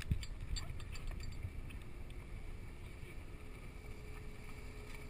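Low rumble of wind and water washing around a camera at the sea surface, with a few faint clicks in the first second or so; a faint steady hum comes in near the end.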